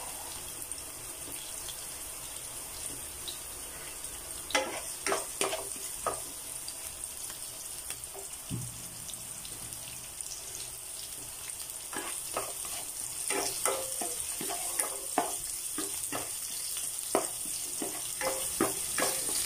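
Sliced onion and garlic sizzling steadily in hot oil in a nonstick wok. A spatula scrapes and taps the pan in short strokes, a few around five seconds in and many more through the second half.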